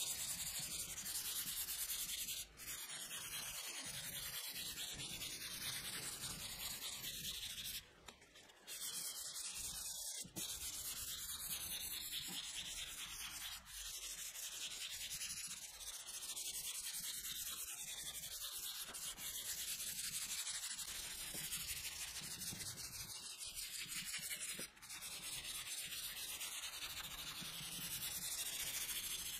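Hand sanding: 220-grit sandpaper on a sanding block rubbing back and forth over polyurethane primer on a Volkswagen Amarok tailgate, a steady scratchy hiss. It breaks off briefly a few times, about 2.5, 8, 14 and 25 seconds in.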